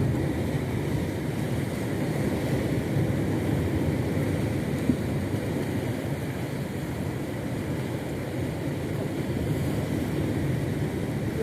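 Small fishing boat's outboard motor running steadily at sea, a low drone mixed with wind and water noise. A single sharp click just before the middle.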